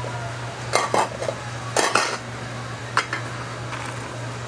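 Stainless steel food pans, lids and utensils clinking and clattering as they are handled: a few sharp knocks about a second in, around two seconds and at three seconds, over a steady low hum.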